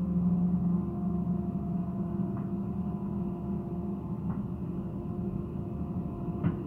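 Hitachi hydraulic excavator running under load as the bucket digs into soil and lifts it. The engine and hydraulics give a steady hum with a whine, the low hum strongest in the first second. A few faint clanks come through, with a sharper knock near the end.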